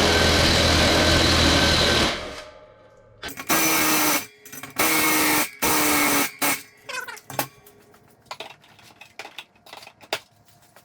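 Impact gun hammering out brake rotor bolts that are held with red Loctite on a dirt bike wheel: one long burst that stops about two seconds in, then two shorter bursts, their pitch falling slightly. After that, scattered light metallic clicks.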